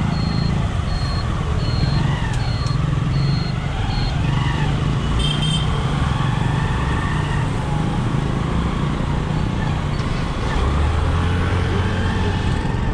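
Vehicle engines running amid road traffic, a steady low rumble. A high electronic beep repeats about twice a second for the first four seconds.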